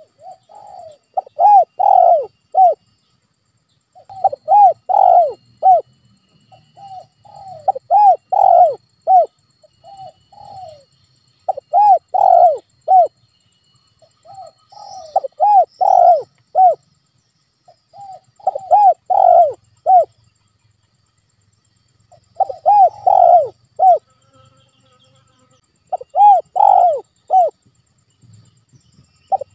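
Spotted dove cooing: a phrase of soft opening notes followed by a few loud, arching coos, repeated about every three and a half seconds.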